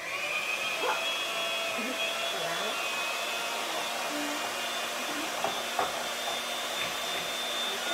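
Electric hand mixer switched on and running steadily, its beaters whipping heavy cream and sugar in a glass bowl toward stiff peaks.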